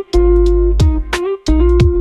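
Background music: plucked-guitar melody over a deep bass, with a sharp beat roughly every second.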